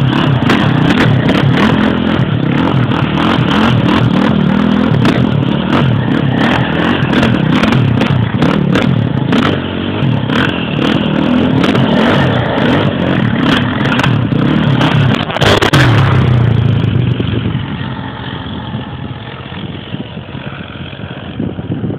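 Single-cylinder four-stroke off-road engines of an ATV and a dirt bike revving hard through power slides on loose dirt, with many sharp clicks over the engine sound. The engine grows fainter after about 17 seconds as the machine moves off.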